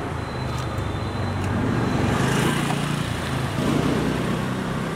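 Street traffic: a motor vehicle's engine running steadily, swelling about two seconds in and again near the end.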